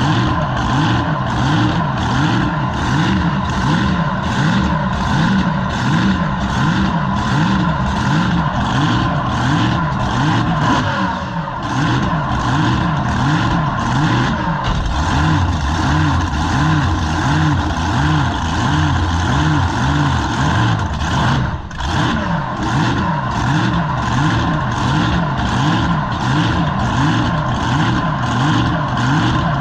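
Drag boat's engine running steadily at low speed on the water, with a regular pulsing beat of about two pulses a second. The sound dips briefly twice, about a third of the way in and again about three quarters through.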